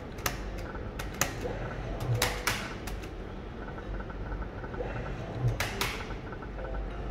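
Video slot machine being played: a series of sharp clicks and clacks as the reels are spun, several in quick succession, over a steady low hum with faint repeating electronic beeps.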